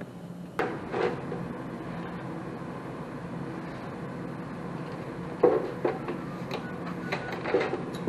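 Sheet-metal door panel of a Goodman furnace being set back in place, with a couple of sharp knocks about half a second in. Several more knocks and clatters of handling follow later on, over a faint steady low hum.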